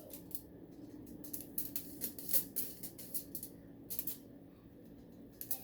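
A sheet of aluminium foil crinkling as it is rubbed and smoothed flat by hand, a run of short, irregular crackles.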